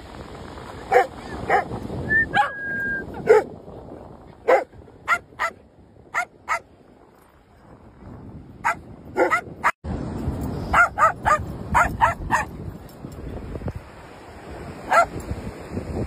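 Dogs barking: short, sharp barks, singly and in quick runs of two or three, over a steady hiss of wind and surf that is louder in the second half.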